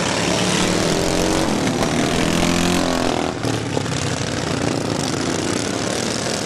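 Racing lawn mower engines running hard. One engine climbs in pitch as it accelerates, and the sound drops briefly a little past the middle.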